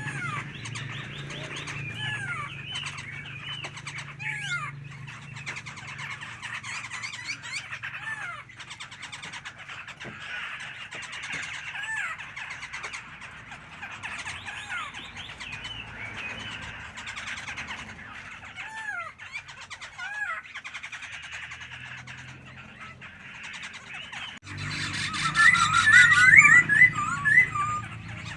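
A songbird singing a string of short whistled and chirping notes, with a louder, faster run of song near the end. A low steady hum runs underneath.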